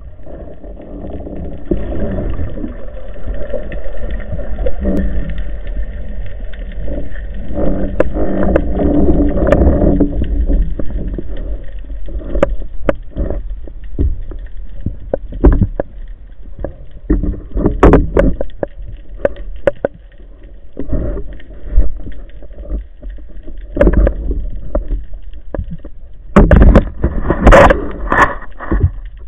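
Underwater sound through an action-camera housing on a free dive: a steady low rush of water with scattered sharp clicks and knocks. Near the end come several loud bursts of bubbling noise.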